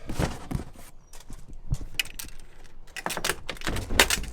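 A series of knocks and clicks, with a denser clatter near the end.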